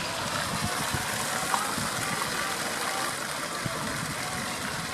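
Steady rushing noise with a few faint, short chirps over it.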